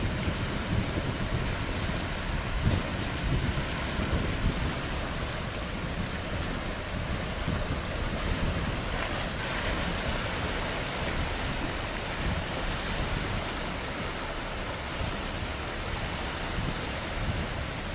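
Steady wind and water noise, with wind gusting against the microphone in the first few seconds.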